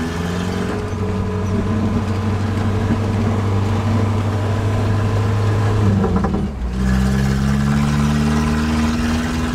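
Four-wheel-drive vehicle's engine running while driving over a rocky dirt road. Its pitch holds steady, breaks off briefly about six seconds in, then rises steadily as it accelerates again.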